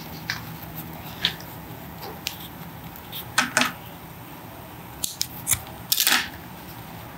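Sewing scissors snipping loose thread ends from a small fabric bow: a scatter of short, sharp snips and clicks, the loudest coming about three and a half seconds in and again around five to six seconds.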